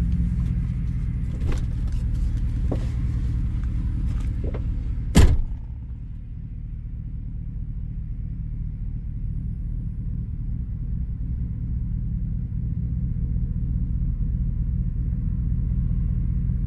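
Pickup truck engine idling with a steady low hum. A few light clicks and knocks come in the first seconds, then about five seconds in a truck door shuts with one loud thump. After that the idle carries on quieter and duller.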